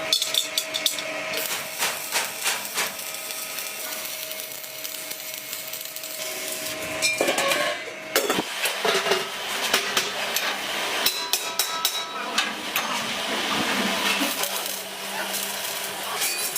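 Irregular hammer blows on sheet steel, sharp metallic strikes with some ringing, over a steady machine hum.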